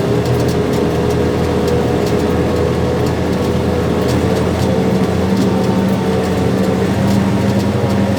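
Farm tractor engine running steadily under load while pulling a planter in low gear, with a constant hum; a lower tone grows stronger about five seconds in.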